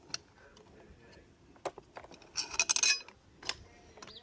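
Small metal parts and tools clinking and clicking as a pressure washer is taken apart by hand, with a short burst of rapid metallic clinks past the middle and a few single clicks around it.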